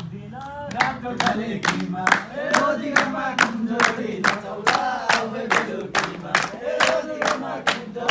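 A group of young men singing a Nepali dohori folk song together and clapping their hands in a steady beat, about two to three claps a second. The clapping starts about a second in.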